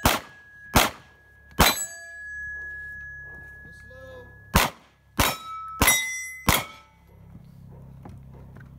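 Seven pistol shots: three in quick succession, then after a pause of about three seconds four more. Several shots are followed by steel plate targets ringing with a clear tone, the longest ring after the third shot lasting nearly three seconds.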